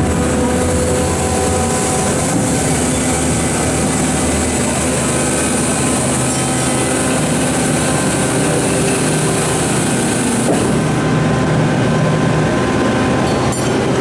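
Komatsu PC4000 mining excavator's diesel engine and hydraulics running steadily under operation, with a high hiss that drops away about eleven seconds in.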